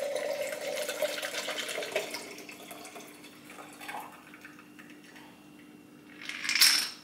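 Liquid poured from a glass jar into a stemmed wine glass: a steady pouring stream for about two seconds that thins to trickles and drips as the pour ends, with a brief louder noise near the end.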